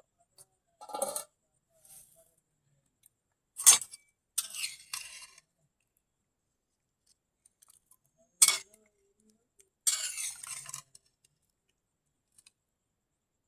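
Metal kitchenware clanking and scraping: two sharp clanks a few seconds apart, each followed by a short scraping rattle, with a smaller rattle just before the first.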